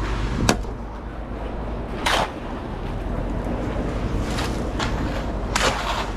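Concrete mixer truck engine running with a steady low rumble during a pour, with three short sharp knocks or scrapes, about half a second, two seconds and five and a half seconds in.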